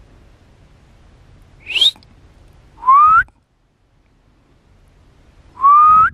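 Three short whistles, each rising in pitch and lasting about half a second. The first is higher and quieter; the last two are very loud and close.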